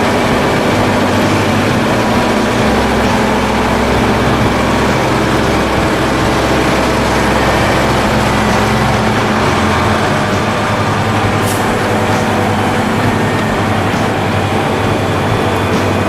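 Engine of a heavy four-track snow-and-swamp transporter running, a steady loud drone whose low tone shifts about three seconds in and again near ten seconds.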